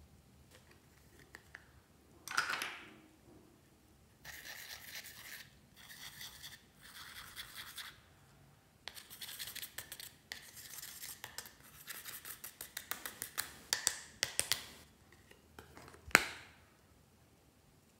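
Eyeshadow being scraped out of a palette's pans with a small tool: stretches of dry scratching, then a run of many quick short scrapes. A single sharp snap near the end as the palette is shut.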